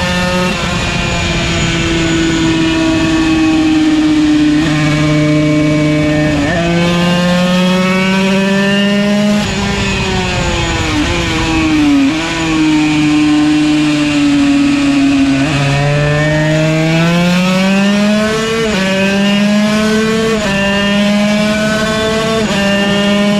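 Yamaha TZ125 125cc two-stroke racing engine accelerating hard, its pitch climbing through each gear and dropping sharply at each upshift. Near the middle the pitch falls in steps as it slows and downshifts, then it climbs through the gears again.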